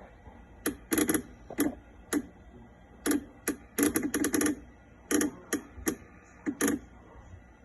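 Breville Oracle Touch espresso machine clicking irregularly while switched off: about a dozen sharp clicks, some single and some in quick runs of two to five, with short pauses between.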